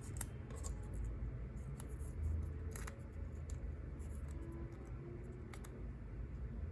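Paper being handled: small paper pieces pressed and fitted together, giving scattered soft clicks and rustles over a low room hum.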